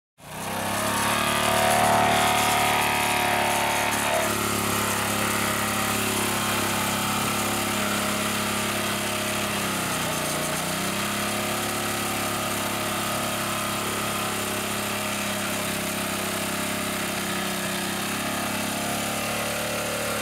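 Small 212 cc single-cylinder OHV engine fed by a GEET fuel processor, running steadily; its speed sags briefly about halfway through and then picks back up.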